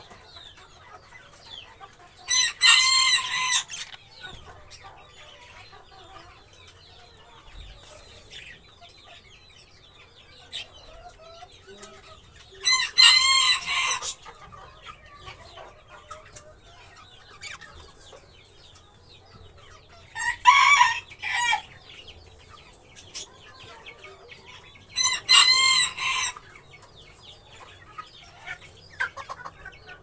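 A rooster crowing four times, each crow lasting about a second and a half, over soft, continuous chirping and chattering of budgerigars.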